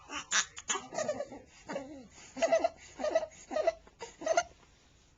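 An infant with laryngomalacia making a run of short, squeaky, pitched breath sounds, about two a second: laryngeal stridor. The sounds stop about four and a half seconds in.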